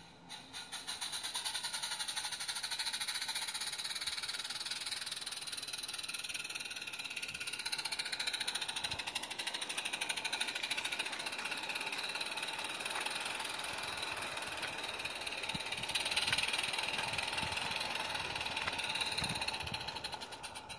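Small live-steam garden-railway locomotive running close by, with a fast, even patter of exhaust beats over a steady steam hiss. It grows louder about a second in.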